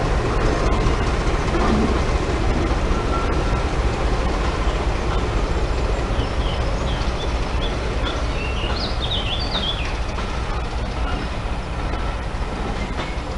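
British Rail Class 14 diesel-hydraulic locomotive hauling a passenger train past, its engine running steadily under the sound of the coaches on the rails. Birds chirp briefly around the middle.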